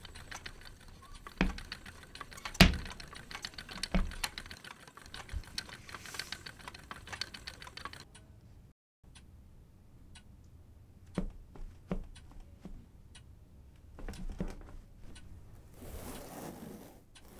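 Foley clicking and tapping: a dense clatter of small clicks for the first half, with three louder knocks, then a short break and scattered clicks and knocks, ending in a soft rustle.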